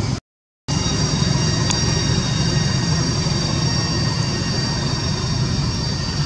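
Steady low rumble with a steady high-pitched whine over it, cutting out completely for about half a second just after the start.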